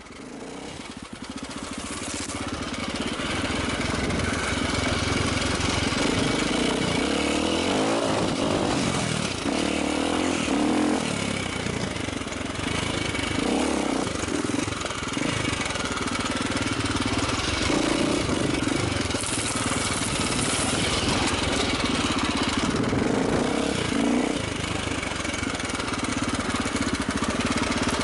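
A VOR (Vertemati) 450 cc four-stroke single-cylinder enduro bike being ridden off-road, the engine revving up and down as the rider works the throttle. The sound fades in over the first few seconds.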